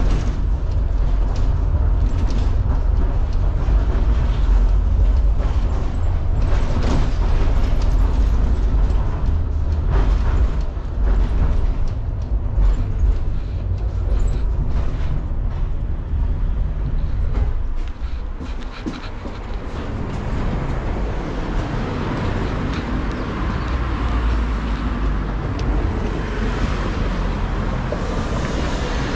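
Tram running along its track: a low rumble with scattered knocks from the wheels on the rails. About eighteen seconds in, the rumble dies away and gives way to lighter, steady street traffic noise.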